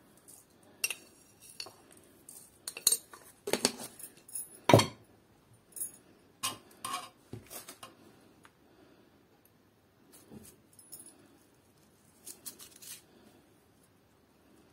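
Kitchen utensils and dishes clinking and knocking: a metal spoon against bowls and containers while spices are added to raw mince. Irregular sharp clinks, busiest and loudest in the first half, then a few fainter ones later.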